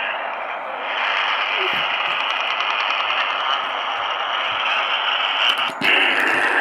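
Steady HF band static hiss from a ham radio receiver playing through a speaker, getting louder about a second in, with a few clicks and a brief dropout near the end.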